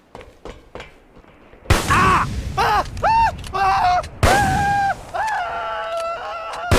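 A high-pitched, baby-like voice making a string of short calls and drawn-out notes, with sharp bangs about two seconds in, again past the middle, and at the very end.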